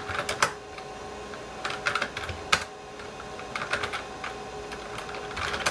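Typing on the IBM PS/2 Model 25's keyboard in short bursts of key clicks, about four groups, over a faint steady hum from the computer.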